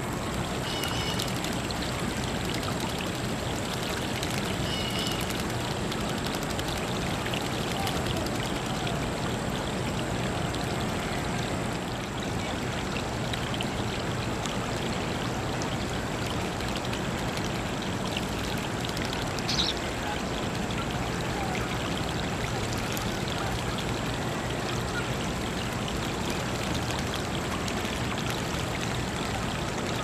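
Water running steadily over rocks into a shallow bird-bath pool, with house sparrows and European starlings splashing as they bathe. A few brief high chirps are heard over the water.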